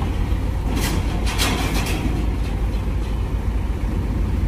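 Heavy diesel vehicle engines running with a steady low rumble, with two brief hisses of air about a second in and shortly after.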